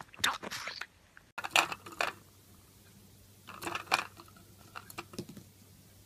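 Short budgerigar chirps in the first second, then a lovebird's scattered crunches and clicks in three short bunches as it pecks at a wicker ball in a plastic cup.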